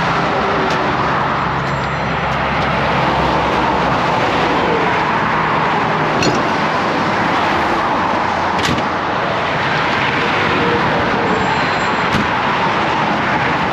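Highway traffic rushing past at speed close by, a steady loud roar of tyres and engines swelling gently as vehicles go by, with a few sharp clicks.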